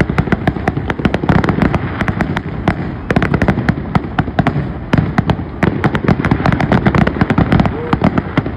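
Fireworks going off in a dense barrage: many sharp pops and crackles each second, with no let-up, from aerial shells and crackling stars.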